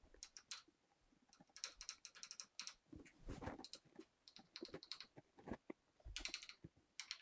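Faint clicks and taps of a small plastic scoop knocking against a plastic paint palette as baking soda powder is spooned into its compartments, coming in several short irregular clusters.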